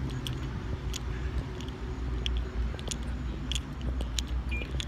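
Footsteps and scattered small clicks of a handheld phone being carried on foot, over a low, steady rumble.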